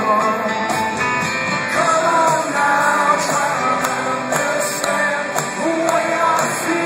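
Live rock band playing, with a man singing lead over guitar and a steady beat, as picked up by a phone's microphone from within the arena crowd.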